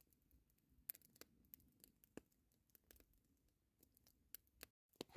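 Faint crackling of a wood fire burning in a metal fire pan, with scattered sharp pops at irregular intervals.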